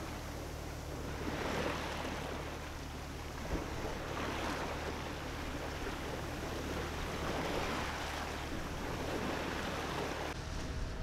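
Bow wave and wash rushing and splashing along the hull of a small tugboat under way, swelling in surges every two to three seconds, over the steady low hum of its engine.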